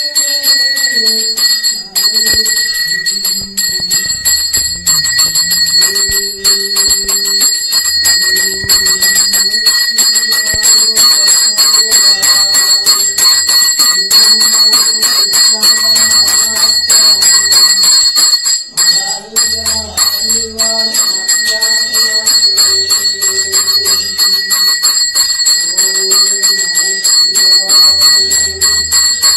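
Small brass hand bell rung without pause during a temple arati, a steady bright jangle, over devotional music carrying a melody with a low drone.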